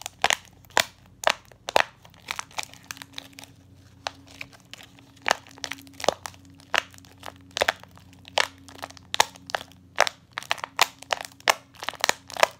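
Homemade tape-covered fidget toy being pressed and squeezed over and over, giving sharp, irregular crinkly clicks and pops, coming faster near the end.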